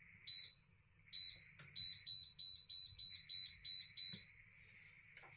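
Electric hob's touch controls beeping as they are pressed: two single short beeps, then a quick run of about nine at roughly four a second as a setting is stepped through. A faint steady high whine runs underneath and breaks off twice.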